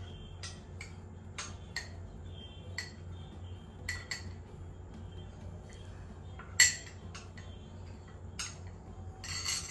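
A metal spoon clinking and scraping against glass bowls as dry powder is scooped and mixed, in scattered single clinks with a short ring, one much louder clink about two-thirds of the way through and a quick run of clinks at the end.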